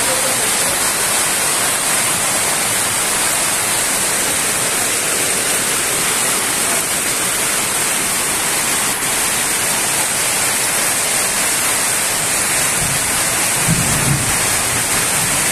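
Heavy rain pouring down, a steady dense hiss of downpour. A few low bumps near the end.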